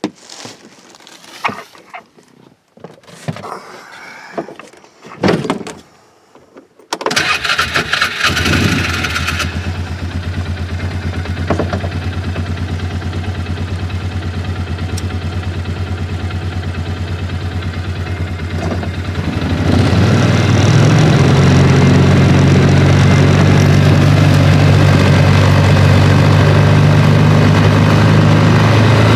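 Scattered clicks and knocks, then about seven seconds in a vehicle engine cranks and starts. It idles steadily, and about twenty seconds in it speeds up and gets louder, as when pulling away.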